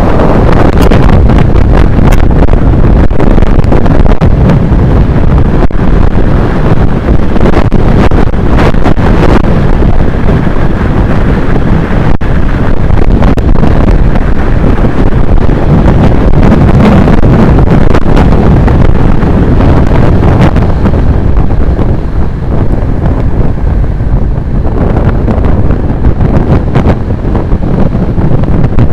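Heavy wind rushing over the microphone of a camera on a road bike descending fast, loud and steady, easing a little about three quarters of the way through.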